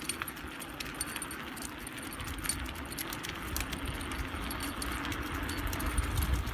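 Irregular light metallic jingling and clinking over a steady low rumble of mountain-bike tyres rolling on a dirt path.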